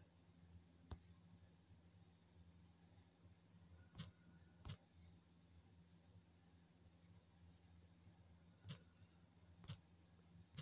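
Near silence with a steady, faint high-pitched chirping trill, broken by about six soft sharp taps as digits are typed on a smartphone touchscreen keyboard.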